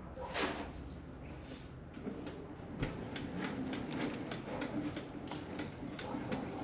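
Hand tools and engine parts clicking and knocking irregularly during work to remove a PCV valve, with a short scrape about half a second in.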